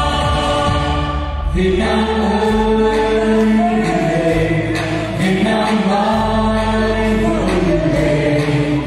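A small vocal ensemble singing a Vietnamese song over instrumental accompaniment, holding long notes. The music changes to a new phrase about a second and a half in.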